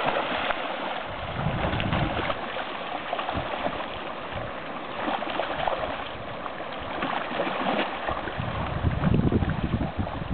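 Golden mahseer thrashing in shallow river water, irregular splashes over the steady rush of the stream. The splashing grows heavier in the last couple of seconds.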